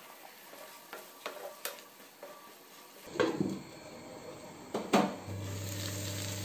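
Potato wedges cooking in a nonstick frying pan: light taps and scrapes of a spatula in the pan, a glass pan lid knocking against the rim around three and five seconds in, then steady sizzling from about five seconds on.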